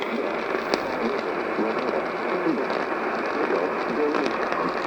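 AM radio reception with a steady hiss of static and occasional crackles, and a faint voice just audible under the noise.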